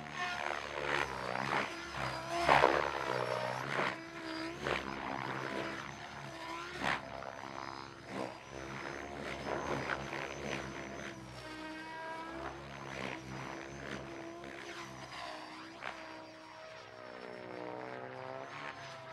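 Mikado LOGO 700 XXTREME electric RC helicopter in flight: a whirring rotor whose pitch swings up and down as it swoops past. It is loudest about two and a half seconds in and grows fainter near the end as it climbs high.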